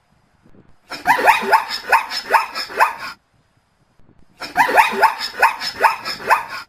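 Zebra barking: two bursts of about five quick yelping calls each, every call rising sharply in pitch, with a short silence between the bursts.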